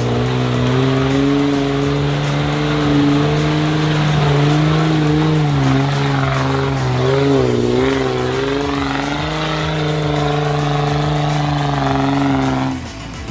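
Toyota Land Cruiser 70-series engine working under load on a steep mud climb. It holds a steady drone, rises and falls with the throttle around the middle, then cuts off sharply near the end.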